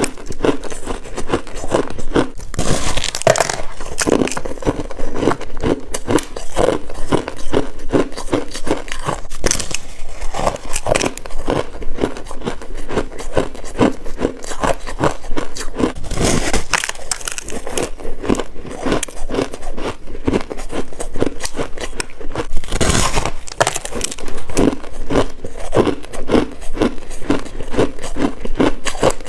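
Close, continuous crunching and chewing of freezer frost, packed ice crystals crackling between the teeth, with three louder bites: one about three seconds in, one around the middle and one a little after.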